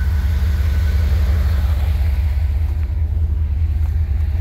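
Ford Bronco II's V6 engine running at low revs as the truck creeps over a rock obstacle: a steady, deep rumble.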